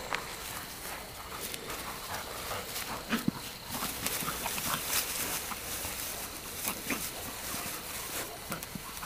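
Black and Tan coonhound worrying a freshly killed raccoon in tall grass: rustling and scattered short noises from the dog, the loudest about three seconds in.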